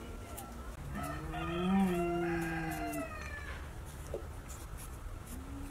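A rooster crowing once, a call of about two seconds that rises, holds and falls away. A shorter, lower call begins near the end.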